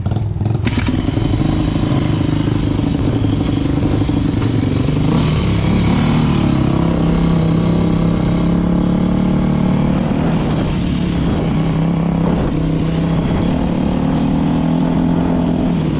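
Yamaha YZ250 two-stroke dirt bike engine running under way, heard from on the bike, with a steady note and small rises and falls in revs.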